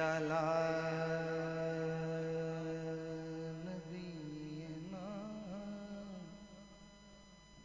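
A man singing a long held note without words, unaccompanied, in the style of a naat recitation; about three and a half seconds in, the note breaks into a few wavering ornamental turns, then fades away near the end.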